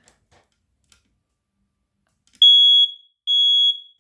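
Home smoke alarm sounding during a test: two loud, high-pitched beeps about half a second each, starting about two and a half seconds in, in an even rhythm.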